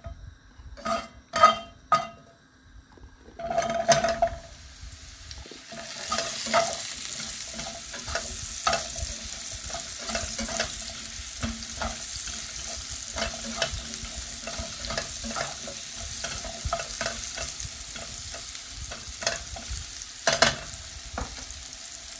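Whole button mushrooms tipped into a hot non-stick frying pan still greasy from bacon, then sizzling steadily while a spatula scrapes and clicks against the pan as they are stirred. A few knocks of the pan and bowl at the start, and a sharper knock near the end as the spatula is put down.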